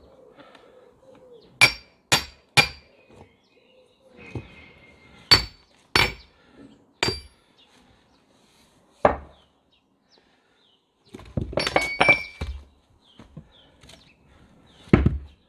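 A sledgehammer strikes splitting wedges driven into a log round with sharp, ringing metallic clinks, in spaced groups of two or three blows. About eleven seconds in comes a quick run of cracks and clinks as the round splits. Near the end there is one heavy thud.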